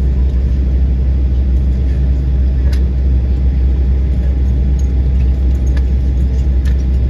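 Steady low rumble inside an airliner cabin as the plane taxis after landing, with a faint steady tone and a few light clicks.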